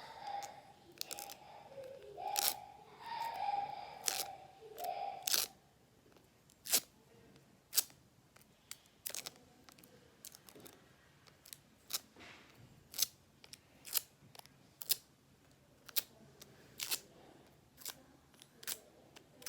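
Hands handling a GoPro Hero 10 and its tempered-glass screen protector: squeaky plastic rubbing and rustling for the first five seconds, then sharp small clicks about once a second.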